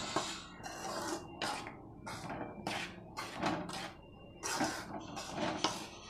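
Metal spoon scraping and turning dry raw rice flour in a metal kadai while the flour is dry-roasted, in repeated irregular strokes about two a second.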